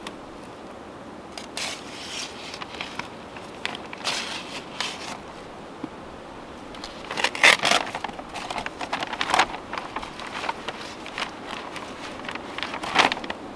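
Plastic courier mailbag crinkling and rustling as it is opened and handled, in irregular bursts, loudest a little past the middle.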